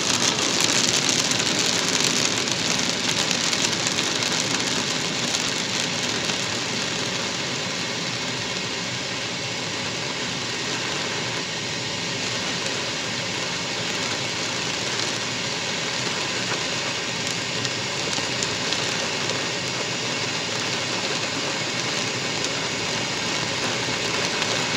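Heavy rain on a moving car's roof and windshield with tyres hissing on the wet road, heard from inside the car: a steady rushing noise, a little louder in the first few seconds.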